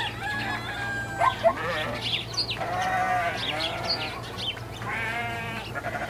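Bleating livestock, goats or sheep, several wavering calls one after another, over a steady low hum.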